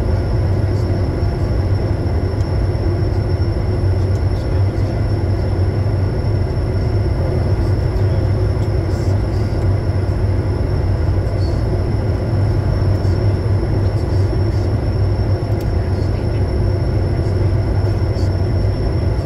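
Steady cockpit noise of a Bombardier Challenger 350 business jet on final approach: an unbroken drone of airflow and its twin turbofan engines, with a strong low hum and a thin, steady high whine over it.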